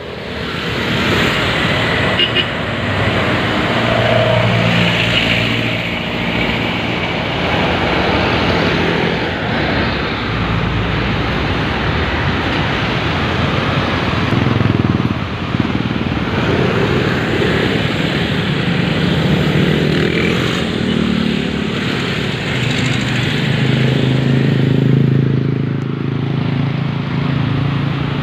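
Busy road traffic close by: trucks, cars and motorcycles passing with their engines running, a steady loud wash of engine and tyre noise.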